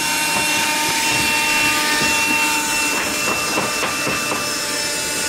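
Vacuum cleaner running steadily: a hiss of rushing air with a high motor whine, and a few light knocks of the nozzle about three to four seconds in.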